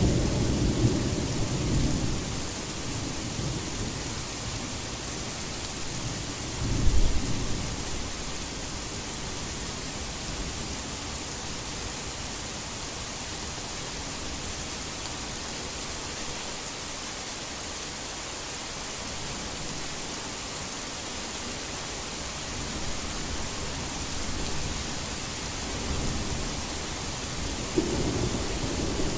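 Heavy rain falling in a steady hiss, with thunder: a rumble dying away over the first couple of seconds, a short loud clap about seven seconds in, and another rumble building near the end.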